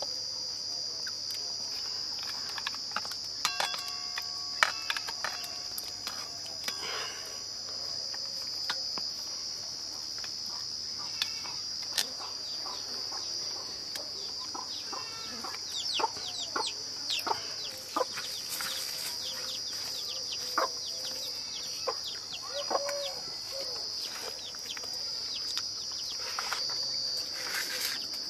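Chickens clucking on and off, over a steady high-pitched drone. Sharp metallic clinks of a ladle against stainless steel plates sound now and then, the loudest right at the start and about four and a half seconds in.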